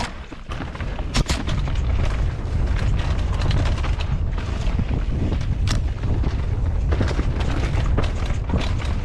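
Wind buffets the microphone of a GoPro action camera in a deep, steady rumble as a mountain bike descends a rough dirt trail. Sharp knocks and rattles come from the bike hitting roots and rocks. The biggest hits come about a second in and near six seconds.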